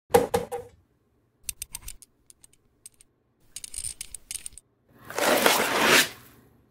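Groups of sharp, hard clicks and clacks, like small plastic and metal parts knocking, then a loud rushing whoosh about five seconds in that cuts off suddenly a second later.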